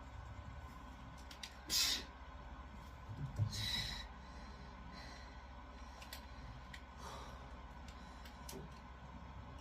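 A woman's two sharp, breathy exhales from the effort of single-leg squats, about two seconds in and again about a second and a half later.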